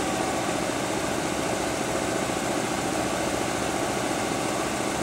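Schaudt E450U1000 universal cylindrical grinder running unloaded, giving a steady, even mechanical hum.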